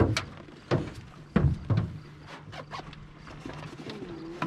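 Four hollow knocks and thumps on a jon boat's hull and deck in the first two seconds, the loudest about a second and a half in, as a person shifts about and handles gear on board, over a low steady hum.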